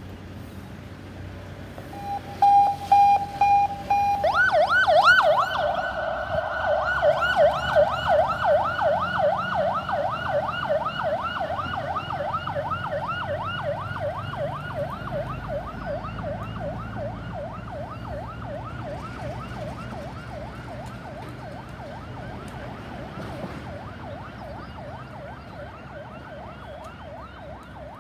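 Ambulance's electronic siren: a few short horn blasts, then a fast yelp sweeping rapidly up and down in pitch, loudest at first and fading steadily.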